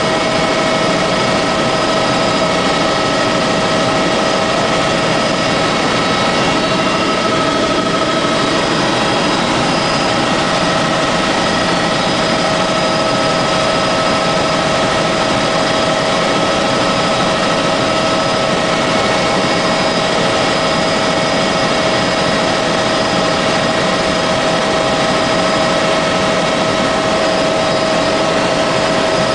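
Helicopter engine and rotor noise heard from inside the cabin in steady flight: an even, unbroken din with a steady high whine over it.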